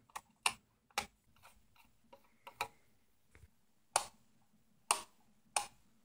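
Plastic clicks from a rocker wall light switch as its rocker cover is snapped back on and pressed: a series of separate sharp clicks, irregularly spaced.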